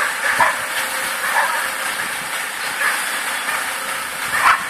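Caterpillar 416E backhoe loader running, a steady hissing machine noise from its engine and hydraulics, with a few short louder bursts.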